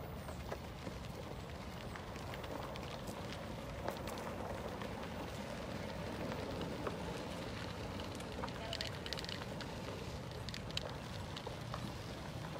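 Irregular crunching and crackling of gravel over a steady low rumble of wind and movement on the microphone.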